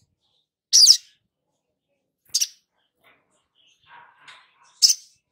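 Olive-backed sunbird calling: three short, sharp, high chirps spaced a second or two apart, with faint softer twittering just before the last one.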